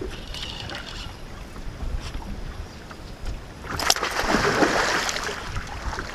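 Wind rumbling on the microphone, then about four seconds in a hooked musky thrashes at the surface beside the boat: a sudden loud splash lasting about a second and a half.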